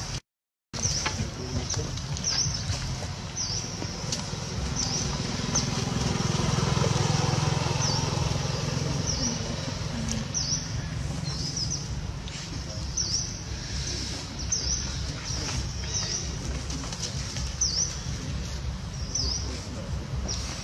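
A bird repeating a short, high chirp about once a second, often two close together, over a steady low outdoor rumble.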